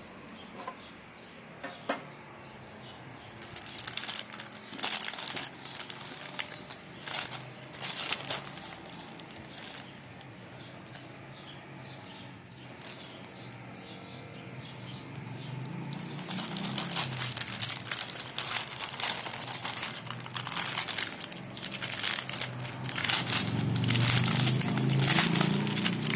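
Clear plastic packaging bag crinkling and rustling as it is handled, a mudguard kit with nylon cable ties inside; sparse crackles at first, growing louder and busier about two-thirds of the way through.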